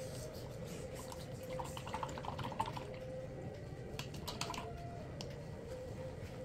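A paintbrush being rinsed in a plastic cup of water: small splashes, drips and light taps of the brush against the cup, in two short flurries, over a faint steady hum.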